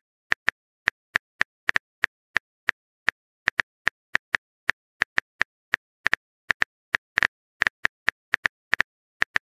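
Keyboard-typing sound effect: a run of short, crisp clicks at about four a second, unevenly spaced, with dead silence between them.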